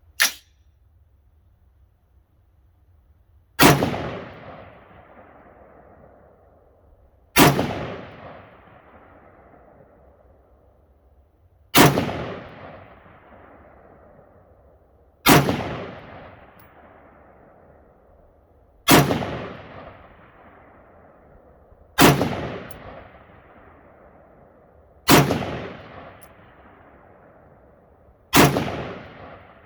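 AR-15 rifle firing single shots of steel-cased ammunition, nine in all, one every three to four seconds, each crack trailing off in a long echo. The rifle cycles each round without a malfunction.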